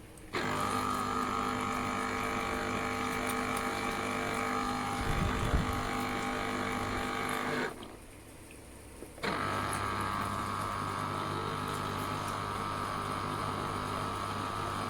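Electric citrus juicer's motor humming steadily as an orange is pressed onto it, cutting out about eight seconds in and starting again a second and a half later. A brief low thud about five seconds in.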